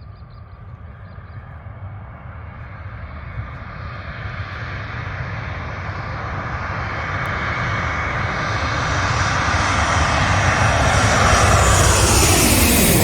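Jet airliner on landing approach, its engine noise growing steadily louder as it comes in low. Near the end the pitch falls as the aircraft passes close by.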